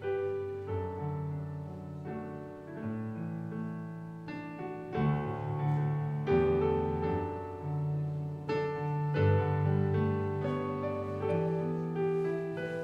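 Slow piano music: held chords and single melody notes changing about once a second, with a few firmer struck notes partway through.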